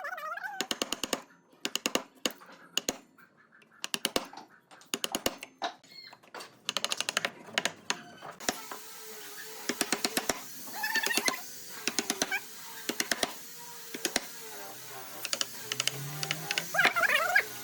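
Rapid runs of sharp taps and clicks, with a few short squeaky pitched sounds among them. A faint steady hum and hiss come in about halfway through.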